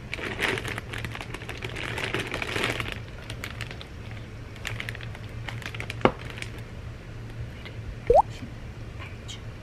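A clear plastic bag crinkling and rustling as it is handled, densest over the first three seconds and then in scattered rustles. A sharp tap comes about six seconds in and a short rising squeak about eight seconds in.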